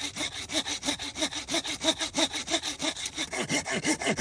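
Hand saw cutting through wood in quick, even back-and-forth strokes, about five a second.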